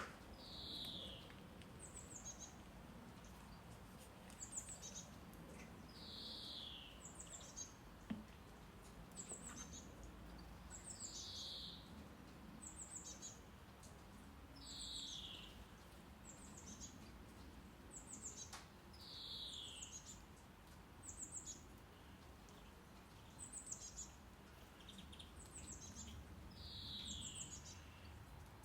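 Faint recorded birdsong: high, short falling chirps in twos and threes alternate with a longer downward-sliding note, repeating about every two seconds. Underneath is a steady low rumble of brown noise.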